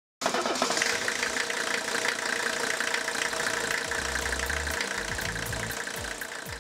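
Diesel engine idling with a rapid ticking clatter over a steady hum. It starts abruptly and fades out near the end.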